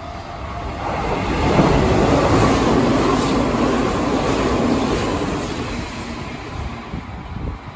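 Hanshin 8000 series electric train running past the platform, wheel and motor noise that builds to a loud peak and then fades as it moves away down the line.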